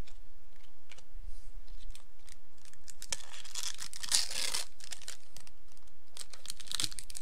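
Foil wrapper of a Magic: The Gathering booster pack being torn open, a loud crinkling tear about three seconds in that lasts over a second. Light clicks of cards being handled come before it, and more crinkling follows near the end.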